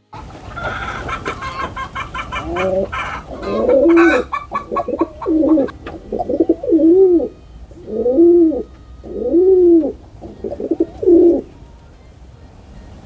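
Pigeons cooing: a run of about eight low coos, each rising then falling in pitch. Higher chirping notes come in the first few seconds.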